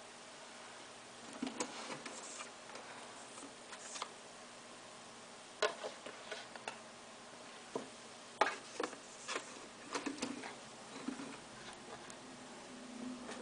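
Faint, irregular clicks and ticks from an iMac's slot-loading DVD drive as it takes in and reads a freshly inserted install disc.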